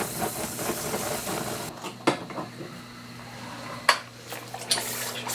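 Hot steel blade sizzling in quench oil during heat treatment, the hiss dying away after a second and a half or so. Three sharp metallic clinks follow, spaced about a second apart.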